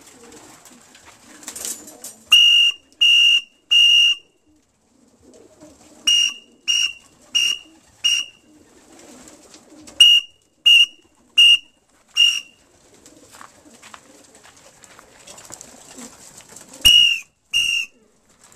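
Short, steady-pitched whistle blasts calling racing pigeons in to be fed: three, then five, then five, then two near the end. Pigeons coo softly between the blasts.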